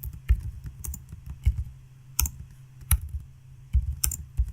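Typing on a computer keyboard: irregular keystrokes about one or two a second, over a steady low hum.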